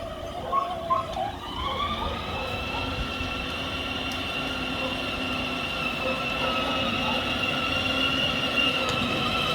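Small electric motor of an RC toy car running with a high whine. It rises in pitch about a second and a half in, then holds steady at speed.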